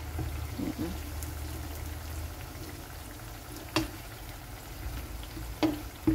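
Cornstarch-coated tempeh and whole garlic cloves frying in hot oil with a steady sizzle. A wooden spatula knocks sharply against the pan three times, once about four seconds in and twice near the end.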